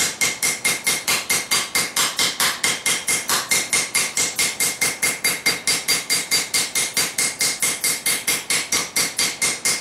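Rapid, even blows of a 2-pound cross-peen hammer on a red-hot 3/16-inch steel plate lying on an anvil, about four to five strikes a second, each with a metallic ring. The peen is pressing longitudinal tree-bark texture lines into the hot plate.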